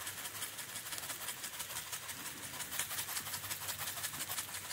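Steady light crackling and sizzling from pork butt steaks cooking over a small wood fire, with dried chopped onion being shaken from a jar onto the meat.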